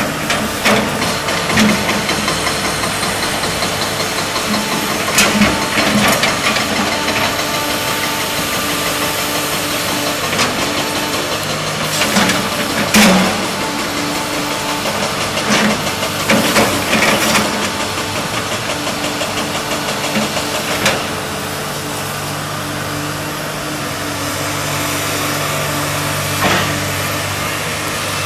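Tracked hydraulic excavator's diesel engine running steadily, with cracks and knocks every few seconds as the bucket and thumb break stumps, roots and brush; the cracking stops about 21 seconds in, leaving only the engine.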